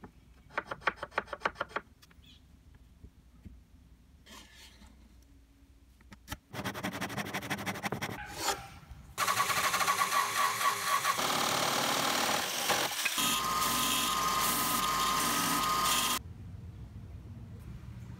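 Electric jigsaw cutting through a wooden board, running loud and steady for about seven seconds before it stops. Before it, a quick series of clicks and a short stretch of rhythmic buzzing.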